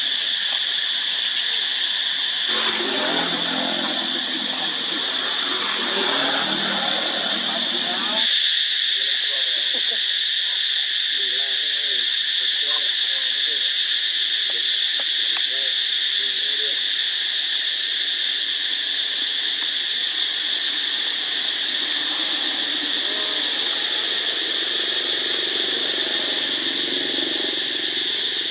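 Steady high-pitched insect chorus droning without a break. Muffled voices come through under it in the first few seconds and again faintly near the end.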